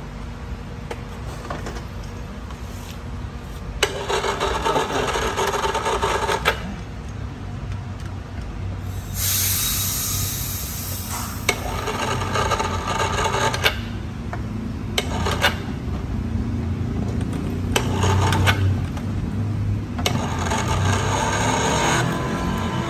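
AC hose crimping machine being worked to crimp a fitting onto an air-conditioning hose. It gives several rasping, grinding bursts of a second or more each, with sharp metallic clicks between them and a brief hiss about nine seconds in.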